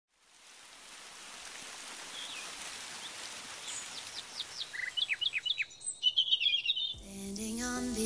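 Birds chirping over a steady hiss of outdoor ambience that fades in: a run of short falling whistles from about three to six seconds in, then a burst of twittering. Music with held chords comes in about a second before the end.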